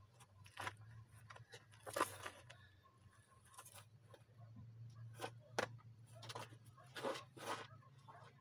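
Footsteps scuffing and crunching on a dirt path, with cloth rustling, in irregular bursts over a low steady hum; the loudest come about two seconds in and again about seven seconds in.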